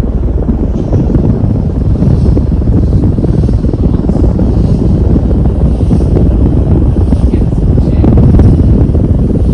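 A 42-inch Gulf Coast porch ceiling fan running on high speed, its strong airflow buffeting the microphone as loud, steady, low wind noise.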